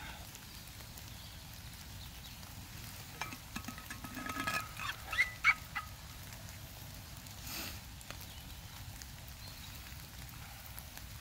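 A bird calling: a run of short pitched calls between about three and six seconds in, ending in two loud notes.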